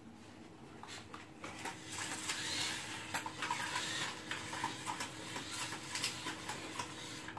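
Toy remote-control cars clattering: scattered light clicks and knocks of small hard parts, busier from about two seconds in.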